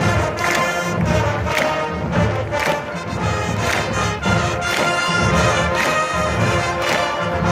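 Massed marching band playing: brass horns holding a loud chord line over a steady drum beat of about two strokes a second.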